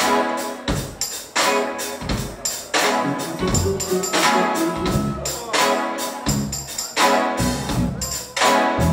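Live instrumental jazz-fusion band playing: drum kit, electric bass, keyboards, electric guitar and saxophone, with sharp drum accents recurring throughout.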